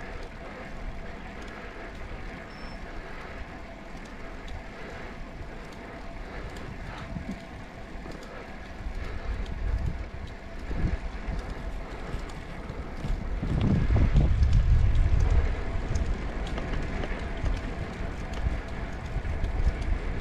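Wind noise on the microphone and road noise from a bicycle being ridden, steady and noisy. A louder gust buffets the microphone from about two-thirds of the way through.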